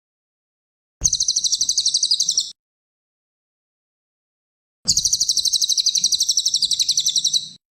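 Cililin songbird singing two high-pitched, rapid chattering trills of quickly repeated notes, a short one about a second in and a longer one starting about five seconds in.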